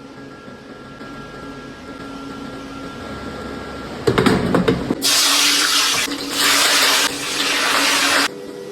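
A clatter about four seconds in, then a loud rushing hiss for about three seconds, dipping briefly once, that cuts off suddenly.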